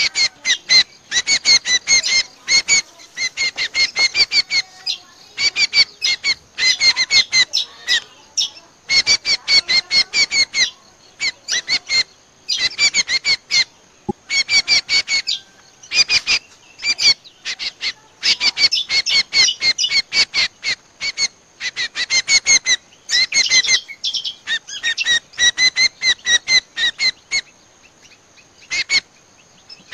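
Cucak kombo (kecial kombo) bird-lure call: rapid bursts of short, sharp chirping notes, a second or two each with brief gaps between. A more warbling, gliding phrase comes near the end.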